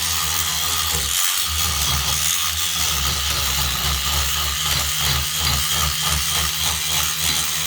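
Battery-powered SonicScrubber cleaning brush buzzing steadily, its small soft-bristled head scrubbing into the corners of a bathroom tap with a scratchy brushing hiss. The buzz briefly cuts out about a second in.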